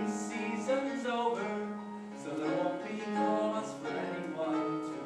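Music from a stage musical: instrumental accompaniment with some singing, the melody moving from note to note.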